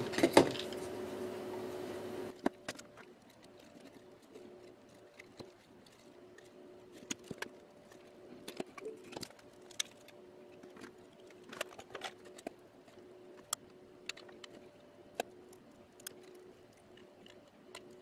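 Scattered light clicks and taps of small plywood case parts and screwdrivers being handled and set down on a workbench mat, over a faint steady hum.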